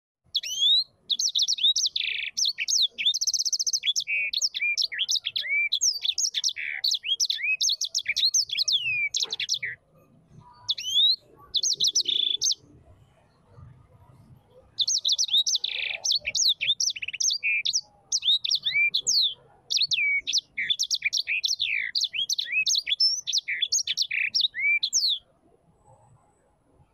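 A small bird singing long, rapid warbling phrases of high chirps, glides and trills, with a break of a few seconds in the middle.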